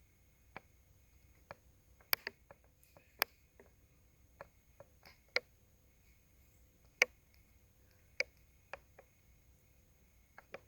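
Light clicks and taps from handling a stethoscope during a lung exam, irregular and spread out, about fifteen in all, the sharpest about seven seconds in. A faint steady high hum sits underneath.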